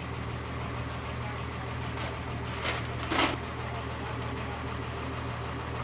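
An engine idling with a steady low hum, and two short hissing noises about three seconds in, the second louder.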